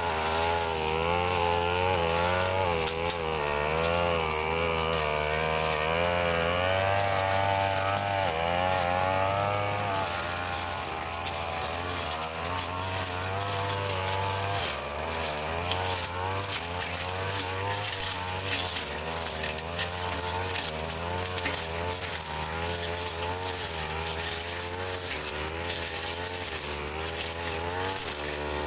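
Petrol brush cutter running while cutting grass, its engine speed wavering up and down about once a second as the load changes.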